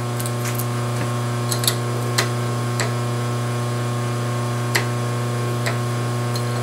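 Steady electrical hum with a scattering of light metal clicks and taps as a steel part and a machinist's square are set against each other in a milling vise.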